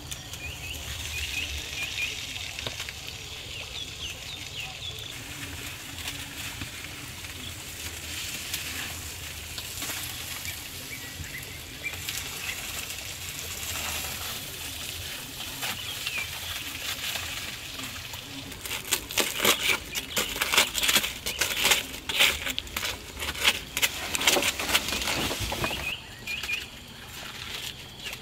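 Evening insects chirping steadily, then a few seconds past the middle a loud run of crinkling, crackling foil lasting about seven seconds before it stops.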